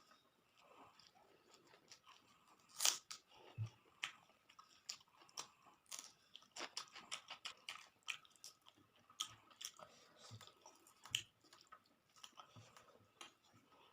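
A person chewing and crunching on crisp fried pakoras, rice and raw onion and chilli. It comes as faint, irregular crunches and wet mouth clicks, the loudest about three seconds in.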